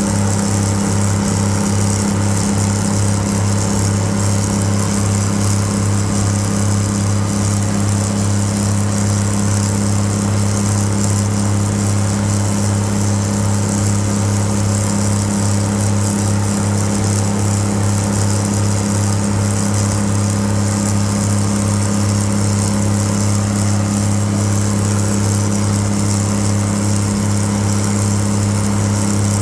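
Twin Cummins NTA-855 inline six-cylinder diesel engines of a GE 80-ton center-cab switcher locomotive, heard close up, screaming under heavy load as the locomotive climbs a grade. It is a loud, steady drone that holds one pitch throughout.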